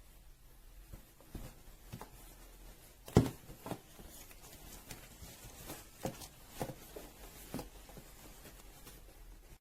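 Hard plastic toy pieces being handled: a string of light clicks and knocks, the sharpest about three seconds in, with smaller taps spread through the rest.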